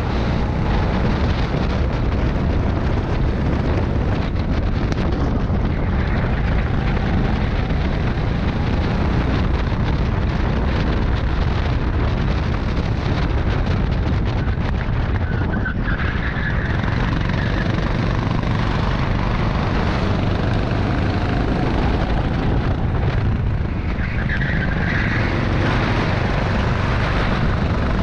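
Rental go-kart engine running at racing speed, with heavy wind buffeting on the microphone. Two short higher-pitched squeals come in the second half.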